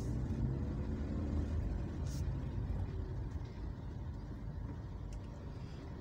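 Steady low rumble of engines and road noise in slow, crowded street traffic of cars and motorcycles, with faint shifting engine tones.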